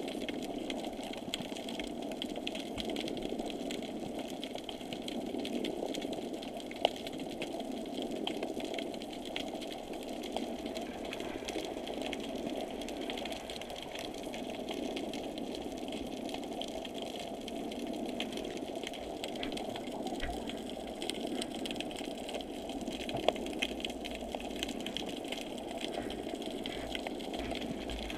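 A small motor running steadily with an even mechanical whirr, muffled as heard underwater, with a couple of sharp clicks.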